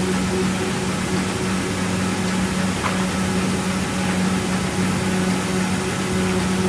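CNC oscillating-knife cutting machine running: a steady machine hum with a noisy hiss over it.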